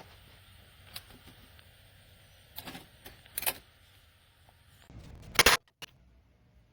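Metal sockets and tool-kit parts being handled: scattered light clicks and clinks, then a louder short clatter about five seconds in.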